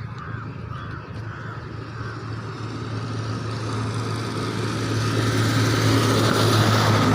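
A motor vehicle approaching and passing close by: a steady engine drone under a growing rush of noise that swells over several seconds and is loudest near the end. Crows caw in the first two seconds.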